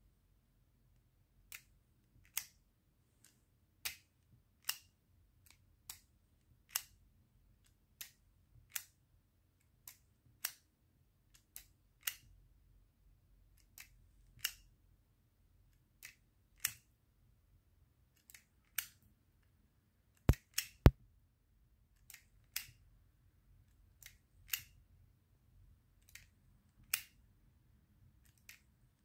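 Springfield Armory XDE BB pistol's action clicking over and over, about one sharp click a second, as it is cycled to work loose BBs out of the gun. Two much louder snaps come close together about two-thirds of the way through.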